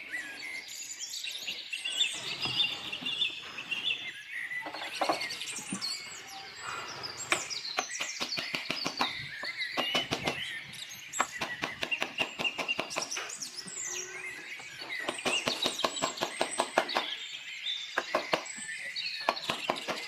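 Birds chirping and calling, with short rising and falling notes and runs of rapid sharp ticks.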